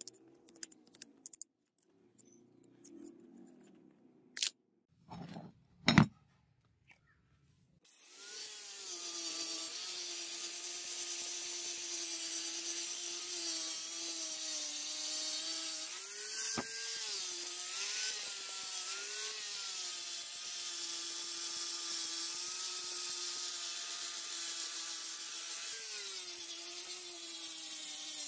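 Scattered clicks and a few knocks, then about eight seconds in a handheld angle grinder with a sanding disc starts and runs with a steady whine. Its pitch dips briefly several times as the disc is pressed into a cast-metal hatchet handle being ground smooth.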